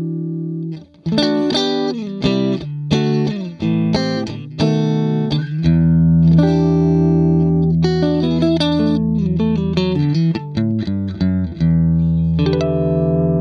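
Electric guitar, a Fender Stratocaster, played through a JHS Whitey Tighty compressor pedal into a Vox AC30 amp. A held note cuts off about a second in, then comes a lick of separately picked notes, a long low sustained note, more single notes, and a note held near the end.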